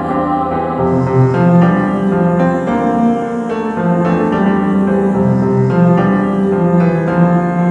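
Piano music from a church choir anthem: chords changing about once a second over held low notes.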